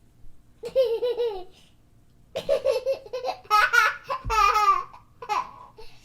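A high-pitched voice in several short runs with wavering pitch.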